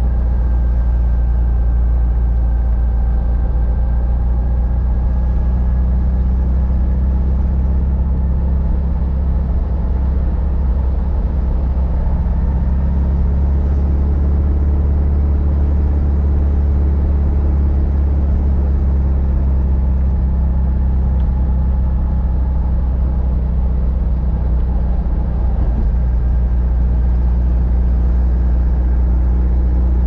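1954 VW Beetle's 36 hp air-cooled flat-four engine running steadily while the car drives along, a deep, even drone that hardly changes.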